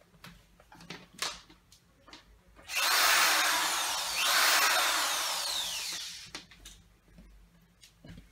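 Power drill boring through aquarium glass for about three and a half seconds, its whine falling in pitch twice, as the bit nears breakthrough. Light clicks and taps come before it.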